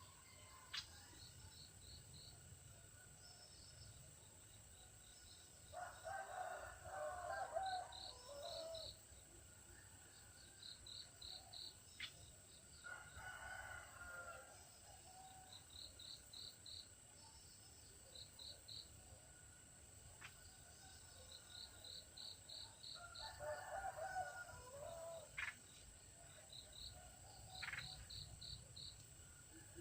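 A rooster crowing faintly three times, each crow lasting two to three seconds. Between the crows come short runs of quick, high chirps, several in a row, from birds or insects.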